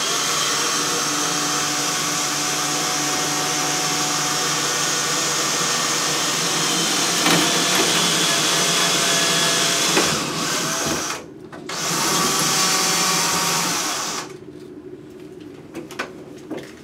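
Electric drill with a small bit running steadily as it drills a small pilot hole into drywall for a plastic wall anchor. It runs for about eleven seconds, stops briefly, runs again for a couple of seconds and stops about three seconds before the end.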